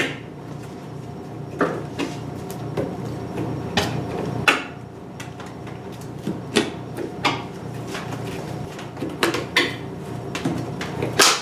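Irregular knocks, taps and clatter of hand demolition work on a wall, about a dozen sharp hits spaced unevenly.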